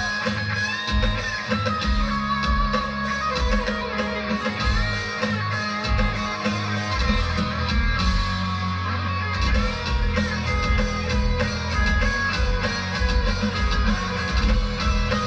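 Live rock band playing: an electric guitar carries the lead with sustained, bending notes over bass and drums, with no singing.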